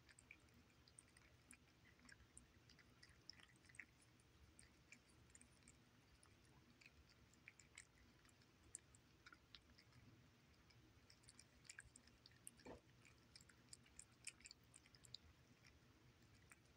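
Two cats eating chunks of wet cat food in gravy from saucers: faint, irregular wet chewing and licking clicks.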